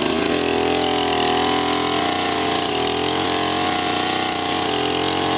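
Tabata backpack brush cutter's small engine running steadily under throttle, its pitch wavering slightly as the cutting head sweeps through short grass.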